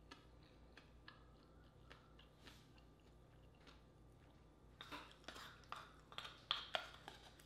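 Faint close-up chewing, then from about five seconds in a short run of clicks and scrapes as a wooden spoon works in a small wooden bowl, loudest near the end.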